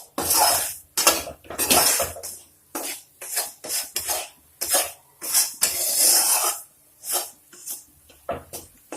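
A stirring utensil scraping around a kadhai, mixing roasted ginger into wheat flour roasted in ghee, in quick uneven strokes about two a second.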